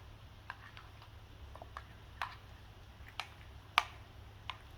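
Scattered light clicks and taps, about six spread out, with a sharper one near the end.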